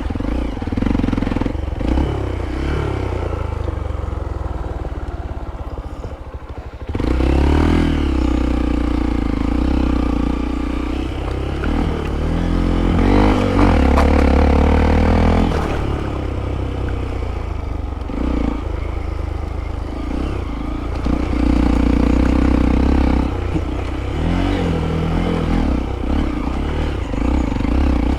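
Hero Impulse's single-cylinder motorcycle engine running under load, the revs rising and falling as it is ridden, with some clatter from the bike.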